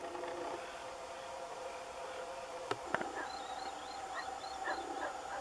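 Birds calling in the distance over a faint steady drone; a couple of clicks about two and a half seconds in, then a run of short chirps repeated several times a second.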